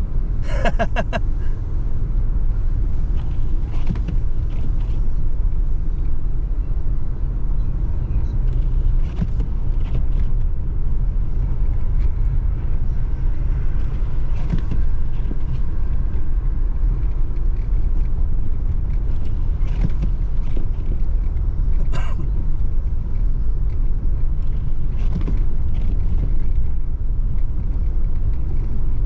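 Steady low rumble of a car driving, heard from inside the cabin, its tyres going over an unplowed, snow-covered street. Faint knocks come and go, with a single sharp click about 22 seconds in.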